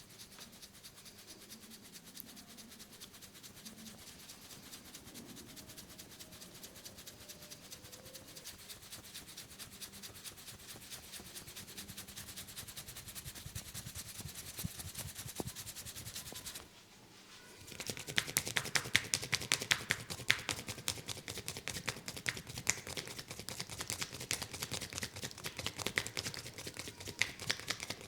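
Fingers massaging a head close to the microphone: a soft, fast rubbing and scratching, then after a brief pause a little past halfway, louder rapid tapping of fingertips on the head.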